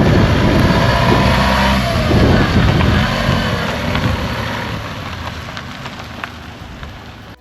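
Motor vehicle running, loudest in the first few seconds and then fading steadily, with a rumble and pitch that shifts early on.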